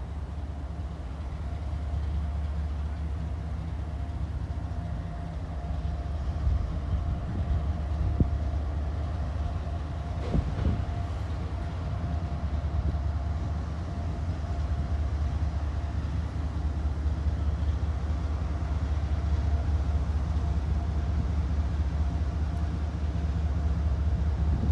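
Diesel freight locomotive approaching slowly, its engine rumbling steadily and growing gradually louder, with a steady whine over the rumble.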